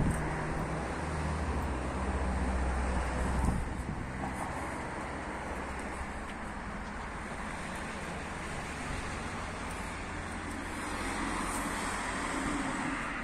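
Outdoor street ambience with wind on the microphone. A vehicle engine's low rumble stands out in the first few seconds, then eases into a steady hiss.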